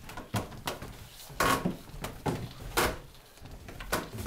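Footsteps going down a wooden staircase: a string of uneven thumps and knocks on the wooden treads, the loudest about a third and two thirds of the way through.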